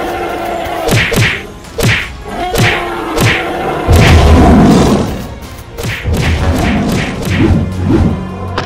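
Cartoon fight sound effects: a run of heavy thumps and whacks, with a loud low rumbling crash about four seconds in.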